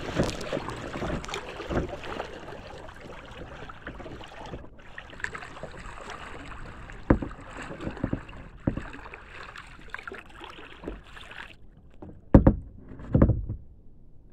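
Lake water splashing and slapping against a kayak's bow as it moves through choppy water. The splashing is busiest at first and then settles, with a few sharp slaps, and two louder thumps come near the end.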